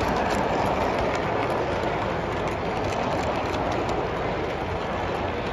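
Model train passenger cars rolling past close by on layout track: a steady rolling noise of metal wheels on the rails, with light clicking over the rail joints.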